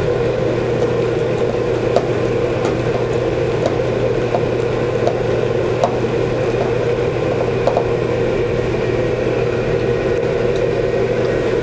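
Steady mechanical whir of commercial kitchen equipment, with small soft clicks and squelches as gloved hands mix minced pork with marinade sauce in a bowl.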